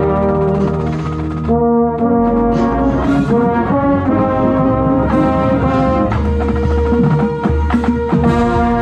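Tenor trombone with an F attachment played loud and close up, holding notes and moving from one pitch to the next every second or so, with crisp tongued attacks at the changes.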